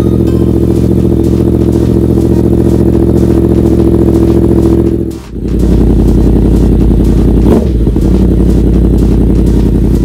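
Yamaha MT-10's crossplane inline-four running at a steady idle through an Austin Racing GP1R slip-on silencer, with a brief break about halfway.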